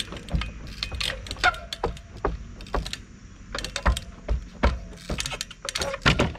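A 24-inch Echo trials bike hopping on wooden pallets: an irregular run of sharp knocks and clatter as the tyres land on the boards and the bike rattles.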